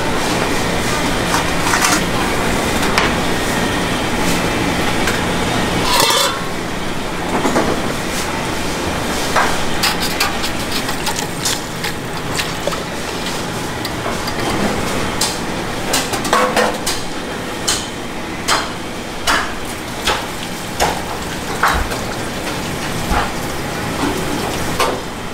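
Utensils and containers clattering and knocking over a steady background noise, with a run of sharp knocks about one a second in the second half.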